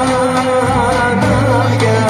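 Live Greek folk band playing a dance tune: a reedy melody, played by a clarinet, winds up and down with quick ornaments over sustained bass notes and a steady beat.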